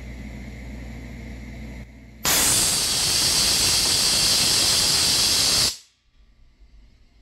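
Electronic timed auto-drain solenoid valve at the bottom of an 80-gallon air compressor tank opened with its test button: a loud blast of compressed air hissing out of the drain, starting about two seconds in, lasting about three and a half seconds and cutting off suddenly as the valve closes.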